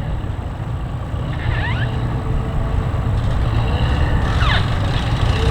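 Low engine rumble running steadily, with two short falling squeaks from a boat hull rubbing on its trailer's bunks as it is loaded, about one and a half and four and a half seconds in.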